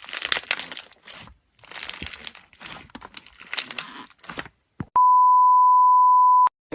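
Slime being squeezed and pressed, crackling and crinkling in three bursts. Then, about five seconds in, a loud steady beep sounds for about a second and a half.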